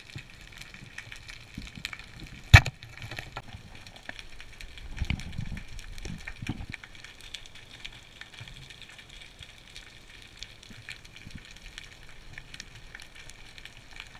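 Underwater ambience heard through a camera housing: a steady crackle of many tiny clicks. One sharp knock about two and a half seconds in, and a few low thuds a couple of seconds later.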